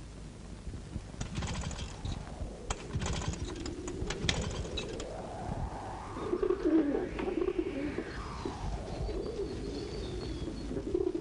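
Pigeons: a flurry of sharp wing flaps, then low wavering cooing, with a slow sound that rises and then falls in pitch over several seconds.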